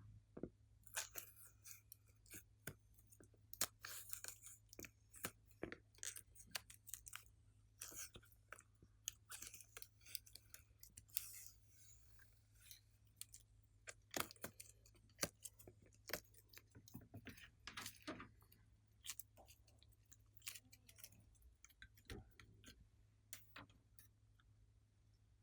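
Glossy slime being worked by hand, giving irregular sticky clicks and crackling pops, at times several a second, over a faint steady low hum.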